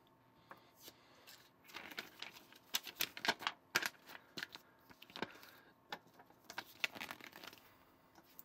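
Handling of plastic Lego pieces and a paper instruction booklet: an irregular run of light clicks, taps and paper rustles, busiest in the middle and tailing off near the end.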